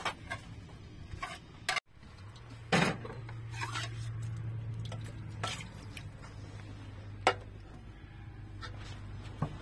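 Kitchen utensils knocking and clinking against pots and dishes in scattered single strikes, the loudest about three seconds in, over a low steady hum.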